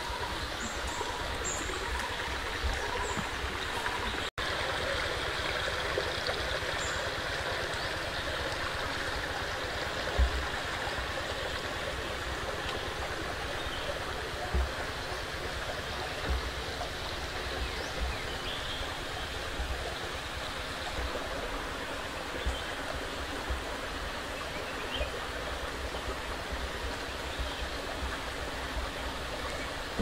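Steady rushing outdoor ambience with irregular low bumps throughout and a few faint high chirps in the first few seconds. It drops out for an instant about four seconds in.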